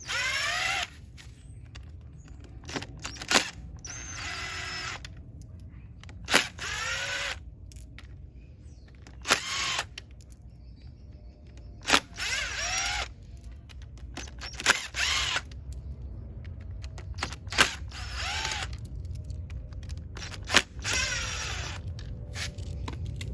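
Cordless drill/driver backing out the screws on a pool check valve cover, spinning up in short runs of about a second with a rising whine, about eight times, each run preceded by a sharp click.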